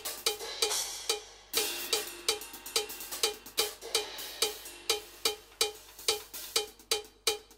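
Drum kit being played solo: a steady pulse of short, bell-like metallic strikes, about four a second, such as a mounted cowbell gives, mixed with other drum hits and a cymbal crash about a second and a half in.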